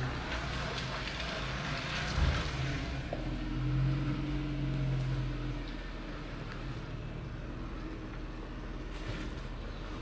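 A motor vehicle's engine humming steadily with a hiss of noise over it; the hum grows a little louder about four seconds in, then fades about halfway through, leaving a quieter steady background.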